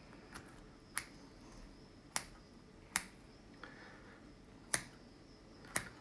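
About five sharp, irregularly spaced clicks from hands and a dissecting instrument working on the skinned owl carcass, over a quiet background.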